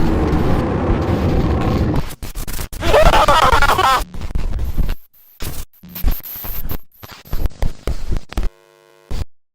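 Harsh static-laden rumble that breaks up about two seconds in into stuttering digital glitches, with a warbling distorted sound around three seconds in. A brief buzzing tone comes near the end, then the sound cuts out to silence.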